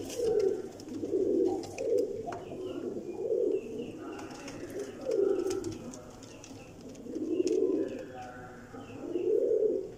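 Several Teddy pigeons, a domestic breed, cooing in their loft: low, throaty coos repeated every second or two.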